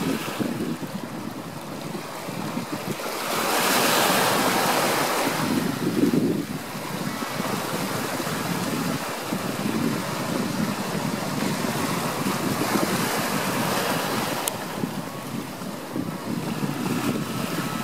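Ocean surf washing in, with wind. A wave swells loudest about three to six seconds in, and the rest of the wash is steadier.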